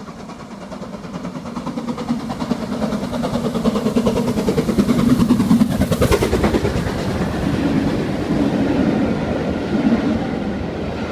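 Great Western steam locomotive and its coaches approaching and passing through a station, the exhaust chuffing and the wheels clattering over the rails. It grows louder over the first few seconds, is loudest about halfway through as the engine passes, then the carriages roll by.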